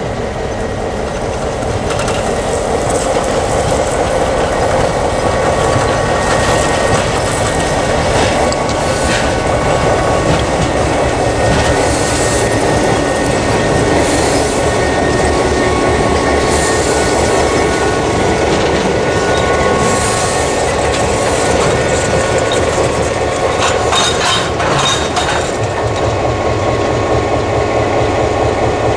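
EMD GP9 diesel-electric locomotive rolling slowly past at close range, its 16-cylinder 567 engine running with a steady rumble that grows louder over the first few seconds as it approaches. Short high squeaks and clicks from the wheels come several times, mostly in the second half, as it draws a tank car.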